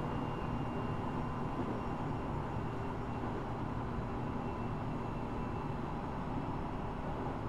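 Steady running noise of a JR East 701-series electric train heard inside motor car KuMoHa 701-5009 while under way, the wheels on the rails making an even rumble, with a faint high whine that fades in and out.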